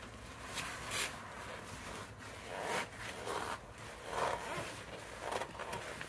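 Clothing and cloth rustling: a zippered jacket sleeve and a shop rag brushing and scraping close to the microphone in a string of short, uneven swishes.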